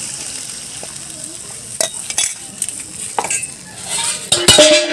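Curry sizzling in a metal kadhai as a spice-and-water mixture is poured into the hot oil, then a metal spoon knocks against the pan a few times while stirring, the loudest knocks near the end.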